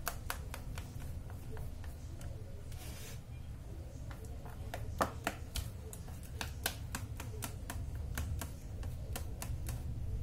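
Wooden chopsticks beating thick cake batter in a stainless steel bowl, clicking irregularly against the metal side, several times a second in the second half, with a steady low hum.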